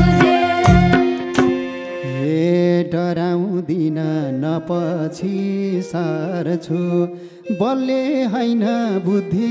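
Live Nepali dohori folk music: drum strikes with instruments for the first second or so, then the drum drops out and a held, wavering, ornamented melody line carries on, breaking briefly and resuming with a rising slide near the end.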